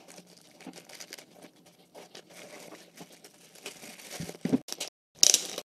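Plastic packaging bags rustling and crinkling as they are handled and lifted out of a box, with louder crinkles near the end.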